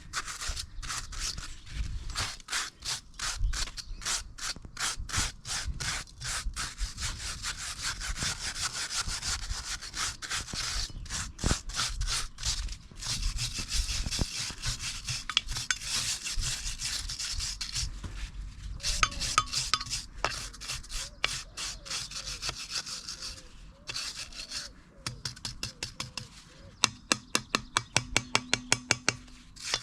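Repeated back-and-forth scrubbing strokes, cleaning grime off engine parts, with short pauses. Near the end a quick run of sharp clicks, about five a second.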